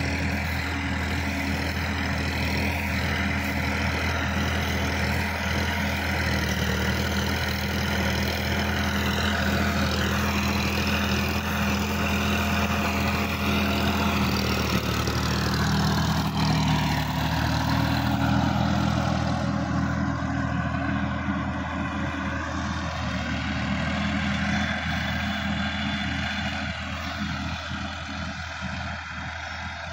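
Sonalika DI-50 RX tractor's diesel engine running steadily under load as it tills a field. It grows louder as the tractor passes close about halfway through, then fades as it pulls away.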